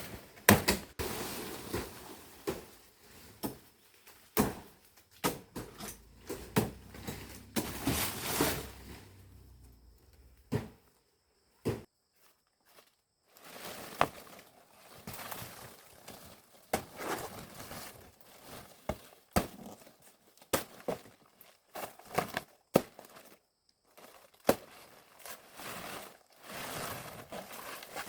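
Irregular rustling and crinkling with scattered knocks and footsteps, with a short pause about halfway through.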